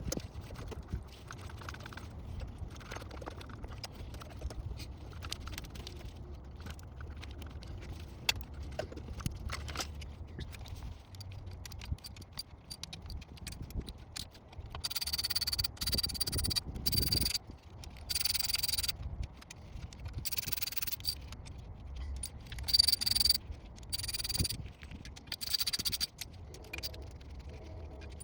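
Metal tools clicking and clinking on engine parts, then, from about halfway through, a series of short bursts of a cordless impact driver spinning with a high whine, stopping and starting as bolts are run out.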